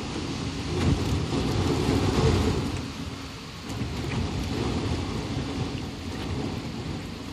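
Roar of severe thunderstorm winds gusting through desert brush and power lines, with the wind buffeting the microphone in a deep, uneven rumble. The gusts swell about a second in and ease briefly around three and a half seconds in.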